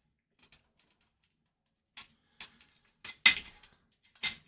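A screwdriver clicking and tapping against metal while the CRT of a compact Macintosh is discharged: four short sharp clicks, the loudest about three seconds in.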